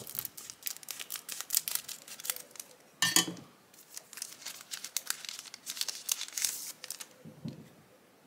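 Scissors snipping across the top of a foil trading-card booster pack, then the foil wrapper crinkling and crackling as it is opened and the cards are slid out, with one louder sharp crackle about three seconds in.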